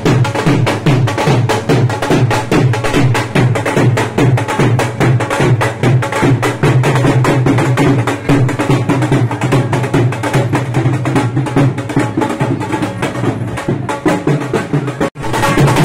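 Dhol, the double-headed barrel drum, played with sticks in a fast, steady beat for dancing, with a momentary break just before the end.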